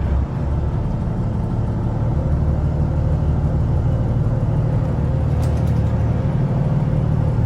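Twin Volvo mechanical diesel engines running at a slightly raised idle, a steady low rumble, freshly started after a cold winter lay-up.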